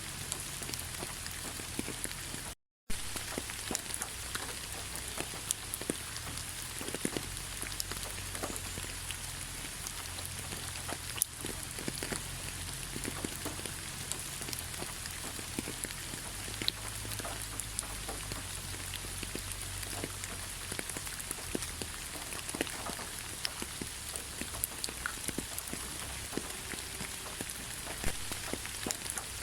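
Steady rain falling in a forest, an even hiss with many separate drops ticking close by. The sound cuts out completely for a moment about three seconds in.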